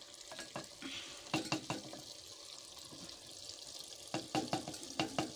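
A spoon stirring a thick cauliflower, pea and egg masala in a clay handi pot, knocking and scraping against the pot in a quick run about a second in and another near the end, over a light frying sizzle.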